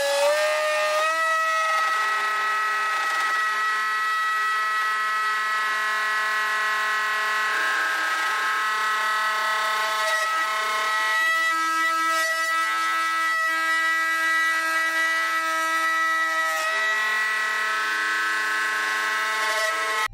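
The 800-watt spindle motor of a homemade CNC router is running with a steady high-pitched whine while a half-inch cutter makes a slow roughing cut in pine. A lower tone underneath changes pitch twice as the machine moves.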